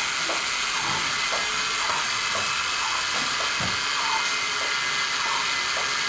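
A steady hiss, with faint voices in the background.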